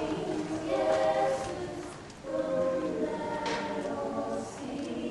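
Music-school choir singing a Lucia song without accompaniment, in long held phrases with a short breath pause about two seconds in.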